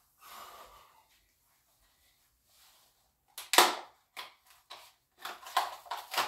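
Cardboard-and-plastic blister pack of a die-cast toy car two-pack being torn open by hand: one loud sharp rip a bit over three seconds in, then a quick run of shorter tearing and crackling sounds.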